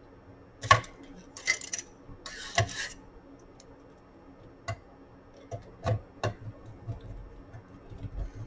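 A screwdriver and hands working on the metal chassis and mechanism of an 8-track player: a series of sharp clicks and taps, with a brief scrape a couple of seconds in.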